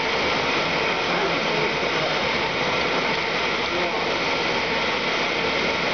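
A steady, even background noise at a constant loud level, with faint voices underneath; no distinct clicks or knocks from the hinge assembly stand out.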